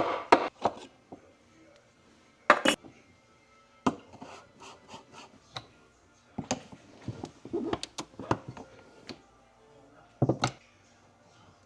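Dishes and utensils being handled: irregular knocks and clatters, the loudest about two and a half seconds in and a double knock near the end, with softer rubbing between.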